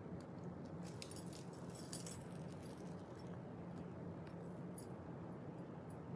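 Faint, light clinking of bangles on moving wrists, a scatter of small ticks that thins out after the first couple of seconds, over a steady low hum.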